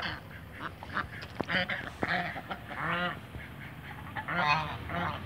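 White Chinese geese honking, a series of about five short honks.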